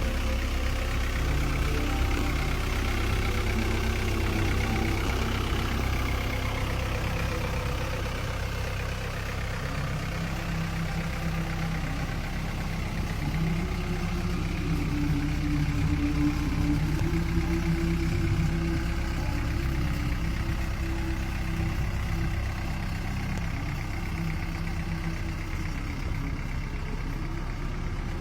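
Volkswagen Transporter T4 van engine running, a steady low drone with a higher tone that comes in and shifts for several seconds in the middle.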